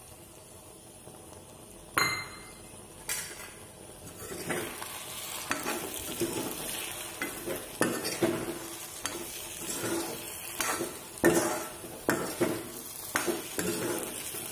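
A metal spoon stirring and scraping eggs and okra frying in a kadai over a high flame, with a sizzle under it. A sharp clink comes about two seconds in, and from about four seconds in the spoon scrapes in repeated strokes.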